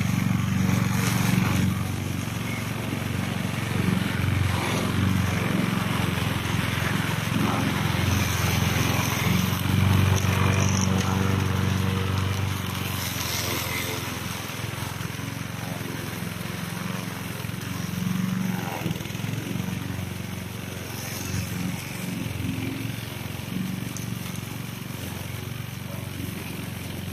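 Engine of a remote-control lawn mower running steadily at working speed, a constant low drone that grows somewhat quieter about halfway through.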